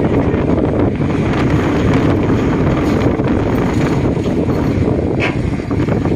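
Steady low rumble of wind buffeting the microphone, with a brief higher squeak about five seconds in.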